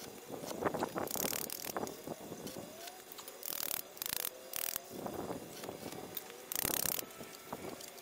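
Short crackling bursts of an arc-welding arc as tack welds are struck on a steel tubing corner joint, with a wire brush scrubbing the weld in a few quick strokes around the middle.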